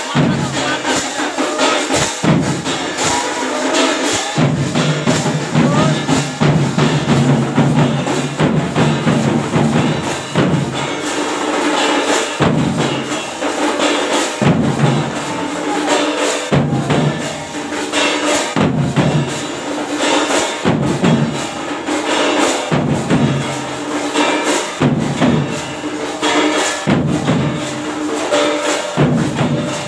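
Kirtan music: large two-headed barrel drums (dhol) beaten in a fast, driving rhythm with jangling metal percussion on top.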